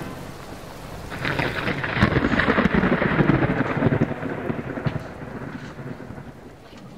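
A roll of thunder over rain, swelling about a second in and then fading away over the next few seconds.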